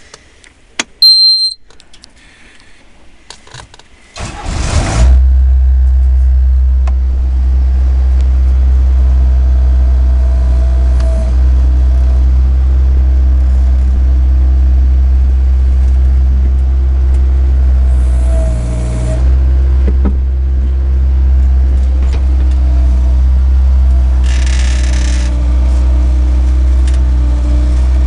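John Deere 4840 tractor's diesel engine starting: a short high beep about a second in, then the engine catches just after four seconds and settles into a loud, steady idle.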